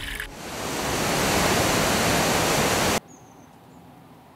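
Loud rushing water that rises in over the first half second, then cuts off abruptly about three seconds in. What remains is quiet outdoor ambience with one faint high chirp.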